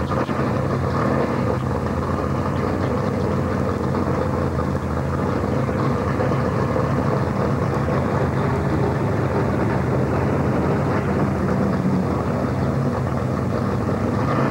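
Stock car V8 engines running steadily at low revs on pit road, idling and pulling slowly away.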